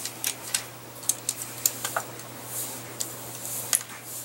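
Irregular light clicks and taps of hard plastic as a transformable toy car is handled and toy figures are shifted about on a tabletop, with a little soft rubbing partway through.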